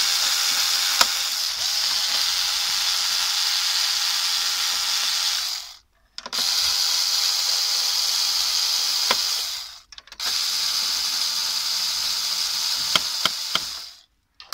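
Small electric screwdriver running in three long runs with short pauses between them, backing out the screws that hold a desktop PC's CPU heatsink. There are a few sharp clicks, about a second in and near the end.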